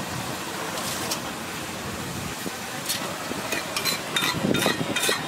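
Masala egg omelette batter sizzling on a flat iron griddle, a steady frying hiss. From about three and a half seconds in, quick clicks and scrapes of a steel plate against the griddle join in and grow louder.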